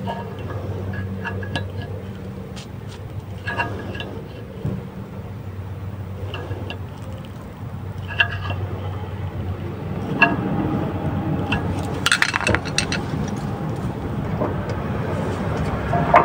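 Scattered metal clinks and scrapes of a flathead screwdriver levering between the brake pad and the caliper of a front disc brake, pushing the caliper piston back so the new pad will fit, with a quick run of clinks about twelve seconds in. A steady low hum runs underneath.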